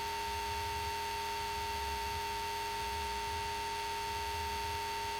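Steady electronic tone at two fixed pitches, a stronger higher one and a weaker lower one, over a low wavering hum; no engine or cockpit noise is heard.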